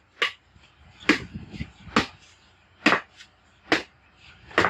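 Six sharp chopping blows, a little under a second apart, of a blade cutting into a large freshly caught fish.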